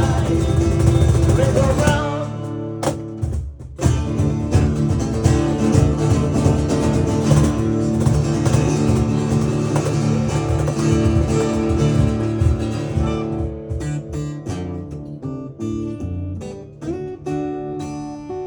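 A band's song led by acoustic guitar, playing an instrumental passage with no singing. A fuller sound drops away about two seconds in. Near the end the guitar thins out into separate plucked notes and gets quieter.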